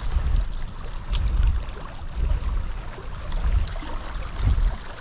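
Water lapping and sloshing under an uneven low rumble, with a few light clicks.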